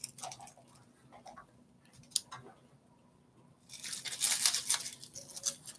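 A dry, papery shed snake skin crinkling and rustling as it is handled and stretched out. There are scattered crackles and one sharp click about two seconds in, then a louder spell of crinkling from about four seconds in.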